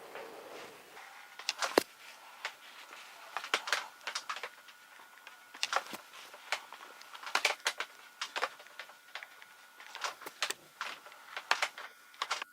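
Crimping iron being clamped and opened on small strands of hair: clusters of sharp plastic clicks and knocks, a few at a time, every second or two, over a faint steady high tone.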